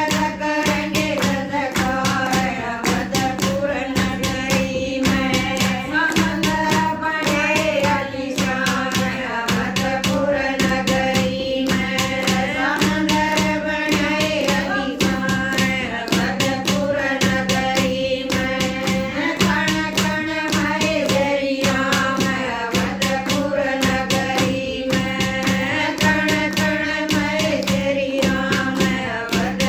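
A group of women singing a Haryanvi devotional bhajan in unison, with a steady, fast beat of hand clapping.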